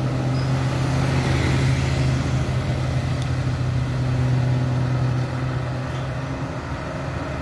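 Road traffic: a heavy bus's diesel engine drones steadily as it pulls away up the road, its hum slowly fading, with a motorcycle passing by.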